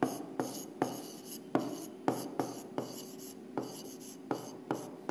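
A pen or stylus writing on an interactive display board: about ten sharp taps, each joined by short scratchy strokes, as a handwritten word goes down.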